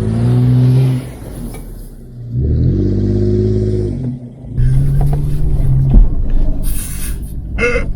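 Off-road SUV engine revving hard in bursts as the truck attempts a steep trail obstacle, rising and falling as the driver gets on and off the throttle, with a sharp knock about six seconds in.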